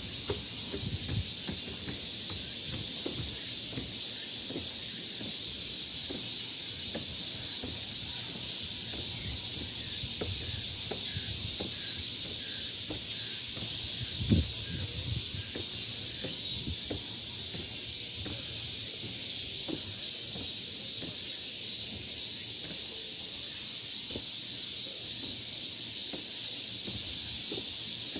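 Chorus of insects in summer woodland: a steady high-pitched buzzing that swells and fades, with scattered soft knocks and one sharper knock about halfway through.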